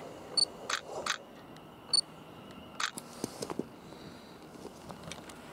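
Two short high-pitched pips about a second and a half apart and several sharp clicks over a faint steady background.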